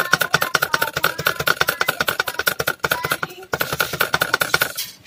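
A small brush scrubbing rapidly back and forth over a laptop motherboard around a freshly soldered capacitor, at about eight to ten strokes a second, stopping just before the end.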